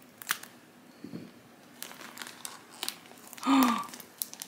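Plastic Ziploc bag and tape crinkling and crackling in scattered sharp bursts as they are peeled off damp sphagnum moss. Near the end a brief voiced 'ooh' falls in pitch.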